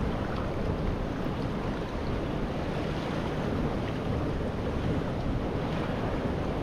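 Strong wind buffeting the microphone over the wash of a rough sea, a steady noise with no let-up.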